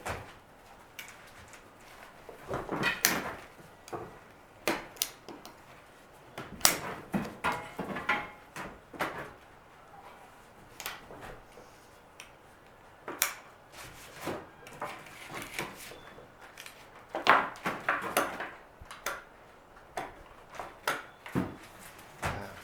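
Irregular knocks, clicks and short scrapes of wood and hand tools being handled during hinge-template work, with the loudest clatter a little past halfway.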